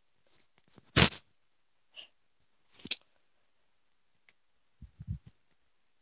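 Handling noise from a handheld camera being moved about: scattered rustles and clicks, a loud scrape about a second in and another near three seconds, then a few dull thumps around five seconds.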